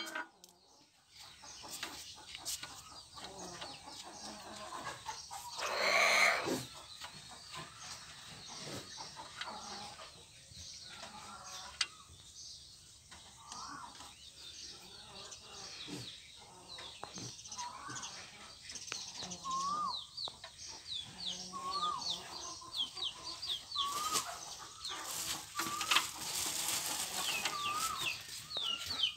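Birds calling over and over, short bending chirps that come thicker in the second half, over light metal clinks of gears being turned and fitted on a splined shaft in a tractor transmission housing. A louder burst of noise comes about six seconds in.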